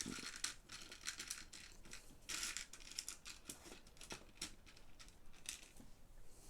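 Hard plastic Lego Technic pieces clicking and rattling as they are handled and fitted, with a brief rustle about two and a half seconds in.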